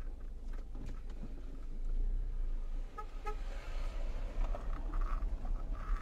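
Two short car-horn toots about three seconds in, over the steady low rumble and occasional knocks of a car driving on a rough dirt road, heard from inside the cabin.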